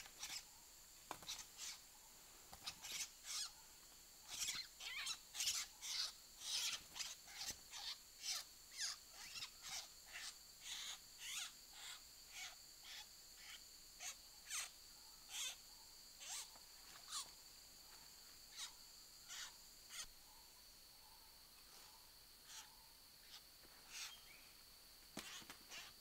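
Steady high-pitched drone of rainforest insects. Over it comes a run of short, sharp scratching sounds, one or two a second, from hands working the soil and undergrowth; they thin out after about twenty seconds.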